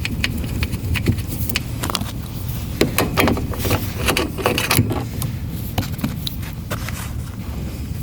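Hand tools and metal parts clinking and knocking irregularly while the steering column frame is being unbolted from under a Toyota AE86's dashboard. The knocks come thickest in the middle, over a steady low rumble.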